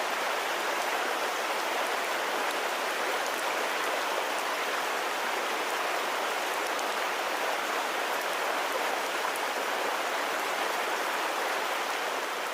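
Steady rush of water, an even hiss with faint scattered drip-like ticks, starting abruptly and holding level throughout.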